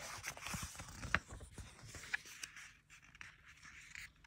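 Rustling and scratching of paper pages being handled close to the microphone, with a few sharp clicks.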